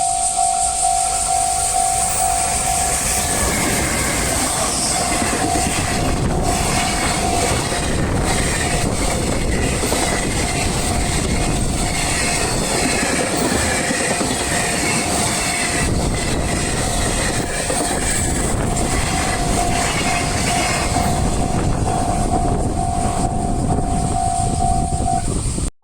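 A train passing over a Japanese level crossing: a heavy rumble of wheels on rail with repeated clacks over the rail joints, while the crossing's electronic warning bell keeps ringing in a pulsing tone, partly drowned out by the train in the middle. Everything cuts off suddenly at the very end.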